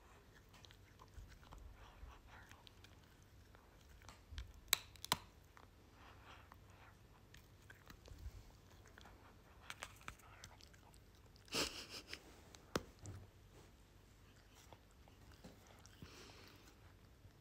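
A caracal gently chewing and licking on a person's fingers: faint, scattered wet mouthing sounds with a few sharp clicks, the loudest about five and twelve seconds in.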